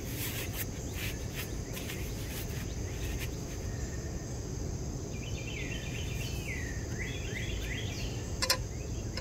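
Outdoor ambience of crickets trilling steadily high over low background noise. A run of swooping chirps comes in the middle, and there is one sharp click near the end.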